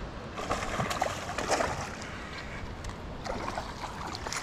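A hooked fish splashing at the surface close to the bank as it is reeled in, in irregular splashes.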